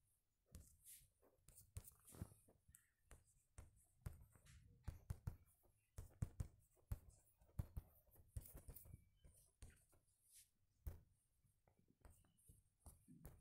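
Faint, scattered taps and short scratchy strokes of writing on a touchscreen, over quiet room tone.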